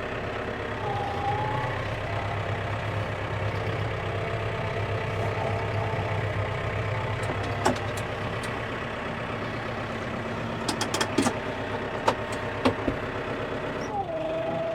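Vehicle engine running steadily, with a few light clicks partway through.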